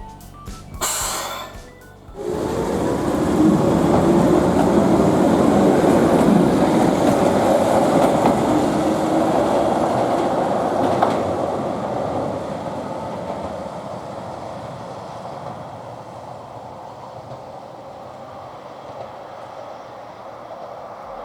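Keihan Ishiyama-Sakamoto Line train passing close by. The sound starts suddenly about two seconds in, with a whine that glides up and down in pitch, stays loud for several seconds, then fades slowly as the train moves away.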